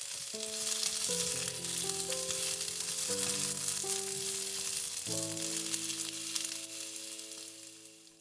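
Food sizzling and crackling as it fries in a pan, fading near the end, over soft background music with held notes that change about once a second.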